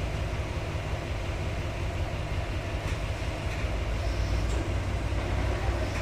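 Heavy diesel engine of construction machinery running steadily, a low rumble.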